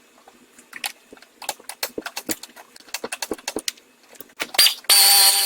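Scattered light metallic clicks and taps of hand tools being handled. Near the end a power tool's motor starts and runs at a steady pitch.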